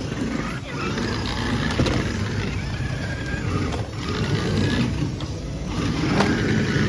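Remote-control toy cars driving around a track: a steady whirring of small electric motors and tyres on the track surface, with a few sharp knocks.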